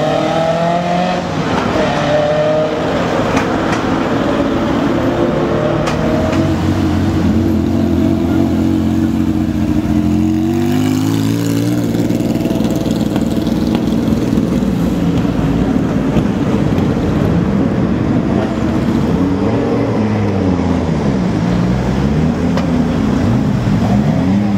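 Rally car engines revving and accelerating past one after another, pitch climbing and falling with the revs and gear changes. About twenty seconds in, an engine is revved up and down repeatedly.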